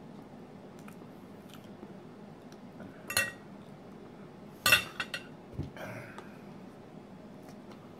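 Metal fork and knife clinking against a ceramic plate while cutting pancakes, a few separate clinks with the loudest a little under five seconds in, followed by a short dull thump.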